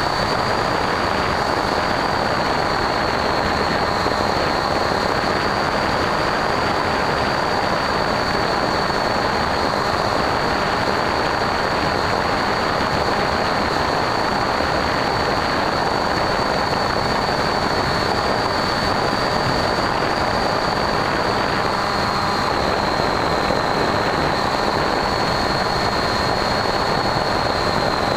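Electric motor and pusher propeller of a Bixler foam RC plane in flight, recorded from its onboard camera: a steady high whine over a constant rushing of wind, the whine dipping slightly in pitch near the end.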